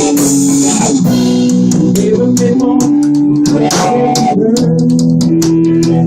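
Instrumental break of a rock band: electric guitar holding long sustained notes over bass guitar and steady drum hits.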